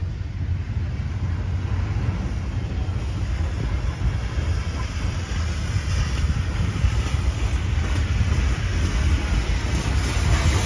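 Steam locomotive hauling a train of coaches as it approaches along the track, a steady rumble that grows gradually louder.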